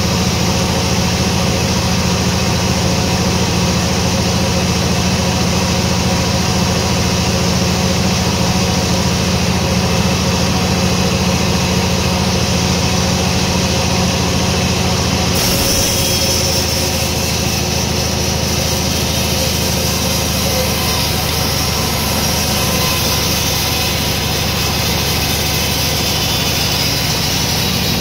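Sawmill machinery running steadily with a loud engine hum. The sound changes abruptly about halfway through.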